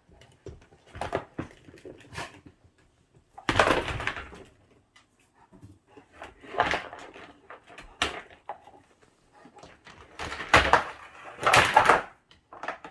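Cat sneezing several times, short sharp noisy bursts with quieter scuffling between, set off by catnip in its nose.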